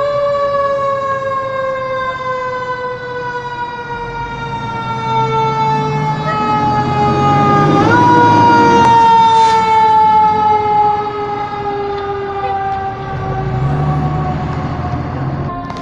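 Fire engine siren winding down in one slow falling tone, spun back up about eight seconds in and again at the very end, the glide typical of a mechanical siren. Under it the fire engines' engines rumble as they pass close by, loudest around the middle, with a short hiss just after.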